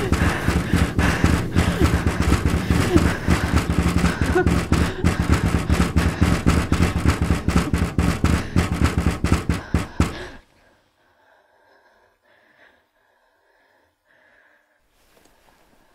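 Loud, dense crackling noise over a steady low hum, a horror-film sound effect, cutting off suddenly about ten seconds in to near silence.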